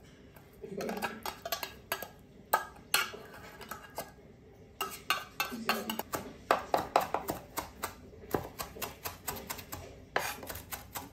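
A few clinks of a fork scraping tinned tuna into a glass bowl, then, from about five seconds in, a knife chopping fresh parsley on a wooden cutting board in a quick run of sharp taps, several a second.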